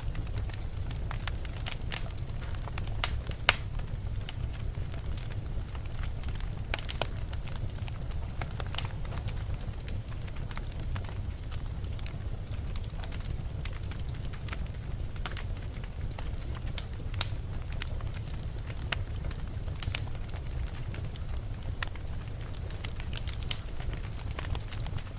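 Fire burning in a fireplace: a steady low rumble of flames with scattered crackles and pops, the loudest pop about three and a half seconds in.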